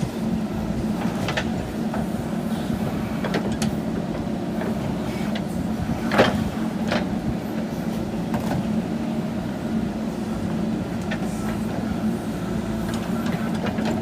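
JCB backhoe loader's diesel engine running steadily, with scattered metallic clanks and knocks from the working machine; the loudest comes about six seconds in.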